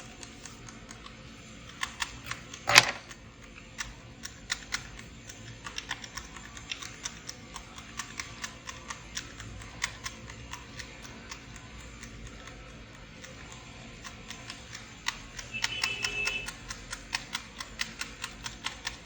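Keys clicking on a USB keyboard, pressed irregularly one after another, with one louder click about three seconds in and a quicker run of presses near the end; this tests whether a repaired HP 15-bs laptop board has powered up. A short high beep sounds about sixteen seconds in.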